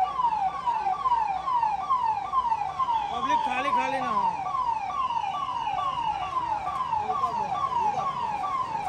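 Electronic siren sounding in rapid, evenly repeated falling sweeps, about three a second, with a person's voice briefly heard a little after three seconds in.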